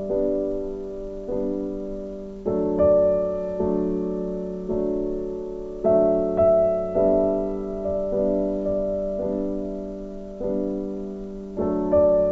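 Background piano music: a slow, gentle melody of struck chords, each left to ring and fade.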